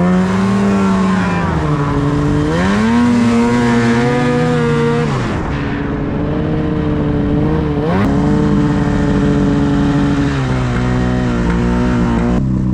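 Ski-Doo snowmobile engine under way, its pitch rising and falling as the throttle is worked, with a sharp drop about halfway through and stepping down again near the end.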